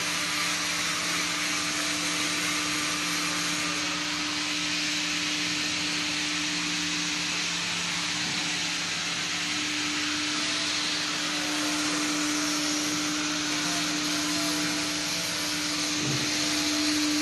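Industrial machinery running steadily: an even, hissing whir with a constant low hum.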